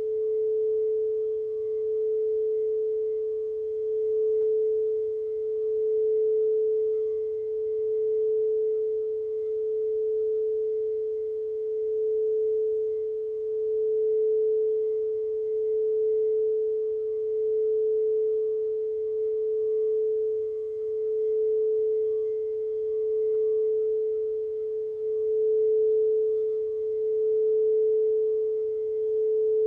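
Singing bowl sounding one sustained, pure note that swells and eases about every two seconds, with faint higher overtones.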